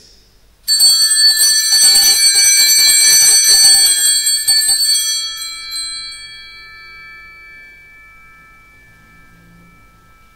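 Altar bells rung rapidly for about four seconds, then ringing out and fading: the bells rung at the elevation of the chalice during the consecration.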